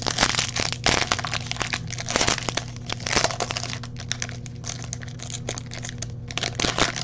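Foil wrapper of a baseball card pack crinkling as it is peeled open and handled: a dense run of crackles, heaviest in the first few seconds and again near the end.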